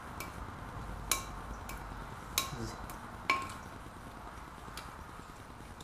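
Sharp metallic clinks, about six, of a socket ratchet and bolts against a cross-drilled steel brake rotor as the rotor is bolted onto the wheel hub. Each clink rings briefly; the loudest come about a second in, near two and a half seconds and just past three seconds.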